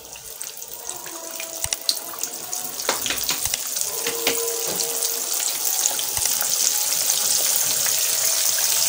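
Flour-dredged tilapia fillet deep-frying in hot oil in a pan: a steady sizzle with scattered crackles and pops, getting gradually louder.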